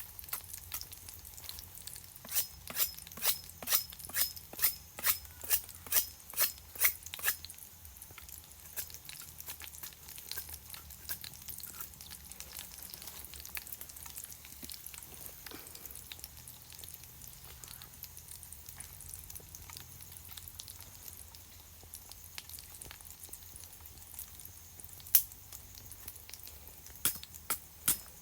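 Food frying in a pan on a camp stove, a faint steady sizzle. About a dozen sharp knocks at roughly two a second run through the first few seconds, and a few single knocks come near the end.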